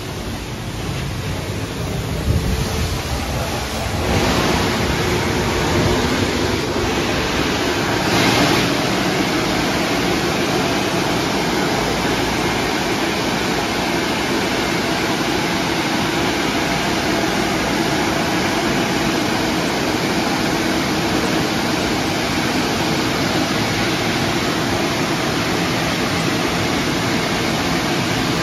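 Istobal M'Start rollover car wash at work on a car: rotating brushes scrubbing the wet bodywork with water spraying, a steady rushing noise that gets louder about four seconds in.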